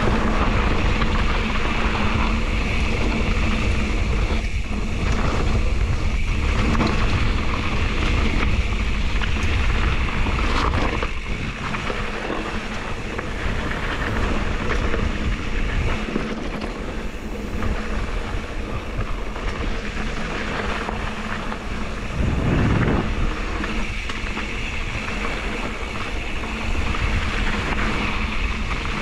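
Mountain bike rolling fast down a dirt and loose-rock trail: steady wind rush on the camera microphone over the rumble of tyres on the ground, with a few knocks from the bike.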